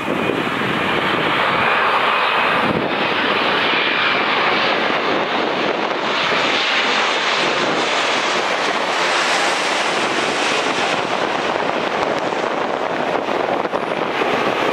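A Boeing 787-9's GEnx jet engines on final approach passing low overhead: a loud, steady rushing roar. A faint high whine fades out after the first few seconds, and the sound grows brighter and hissier around the middle as the airliner goes straight over.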